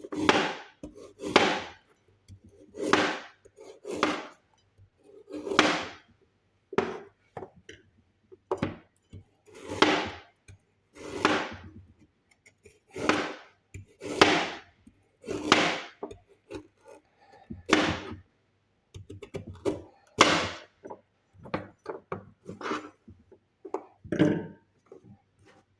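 Knife slicing a carrot on a cutting board: a long series of separate cuts, roughly one a second, each ending in a knock of the blade on the board, with lighter strokes in between.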